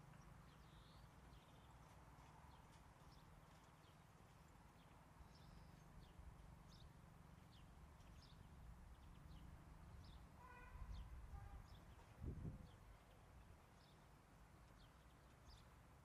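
Near silence: faint outdoor ambience with scattered short, high chirps of distant small birds over a low rumble. About ten seconds in comes a brief pitched call, and just after it a soft low thump.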